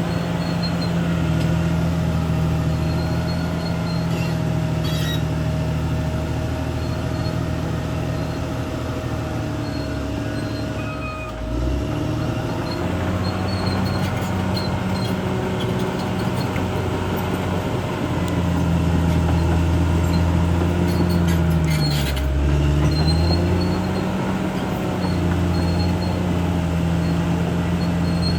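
Caterpillar D6R XL bulldozer's diesel engine running steadily with a constant whine. The engine note sags and recovers twice, about 11 seconds in and again about 22 seconds in.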